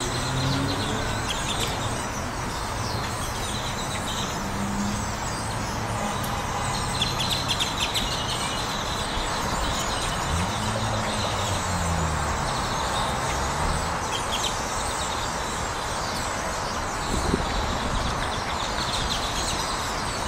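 A large flock of great-tailed grackles calling all at once, a dense, constant mass of squeaky chatter and clicking calls. Vehicle engines run underneath, one passing about ten seconds in.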